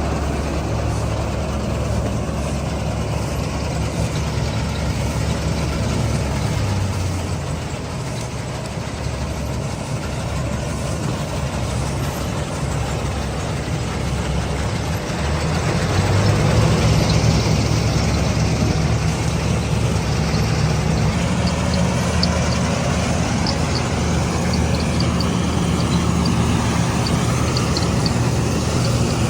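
Combine harvester's diesel engine running steadily under load, getting louder a little over halfway through.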